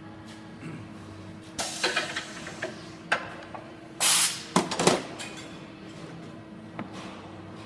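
Steady machine hum with two clusters of loud, sharp hissing bursts, like air being released, about one and a half seconds and four seconds in.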